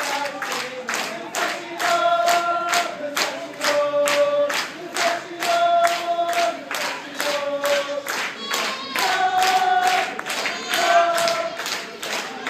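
Football supporters chanting in unison, holding sung notes in repeated phrases over a fast, steady clapped beat.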